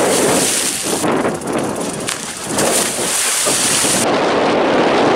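Splash from a bomb jump into sea water: the spray raining back down onto the surface and the water churning, with wind on the microphone. The hiss of the spray eases off about four seconds in.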